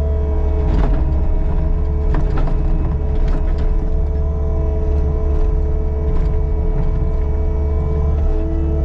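Caterpillar 299D2 compact track loader running steadily, its diesel drone under a steady whine of several tones, with a few sharp knocks in the first few seconds.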